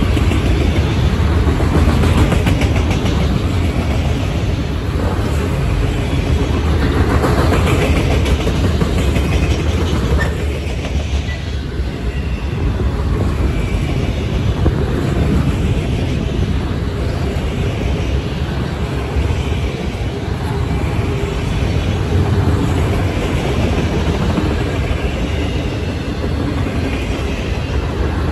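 Freight train of autorack cars rolling past close by: a steady, loud rumble of steel wheels on the rails.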